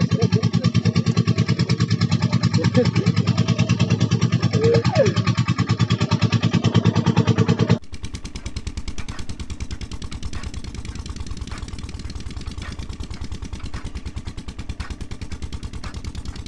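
A motor runs with a steady low throb, loud for the first eight seconds, then much quieter after a sudden drop. After the drop, a hand-cranked chaff cutter's blade chops fodder straw with a short click about once a second.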